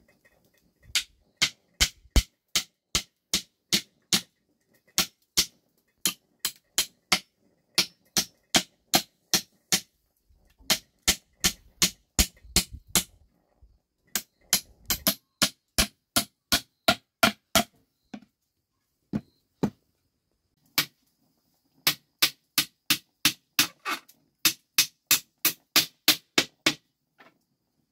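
Claw hammer driving nails into a wooden frame: runs of sharp, evenly spaced blows, about two to three a second, with short pauses between nails.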